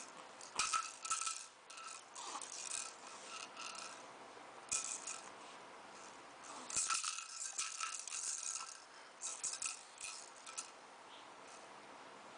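A toy rattle shaken in several short bouts of rattling, with pauses between them and a faint ringing tone within the shakes.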